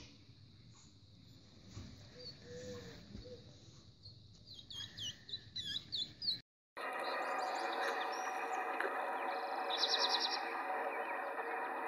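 Newborn hedgehogs (hoglets) giving a run of thin, high squeaks. After a sudden cut comes a louder, steady outdoor chorus of bird calls, with a fast bird trill near the end.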